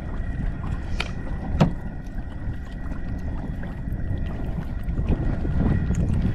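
Steady low rumble of wind and lapping sea water, with a sharp click about a second in and a louder one about a second and a half in.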